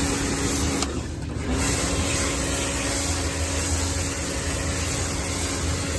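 Kärcher electric pressure washer running as it sprays foam degreaser through its foam-bottle nozzle onto a car floor mat: a steady motor hum under the hiss of the spray. About a second in, the spray and hum stop for half a second, then resume.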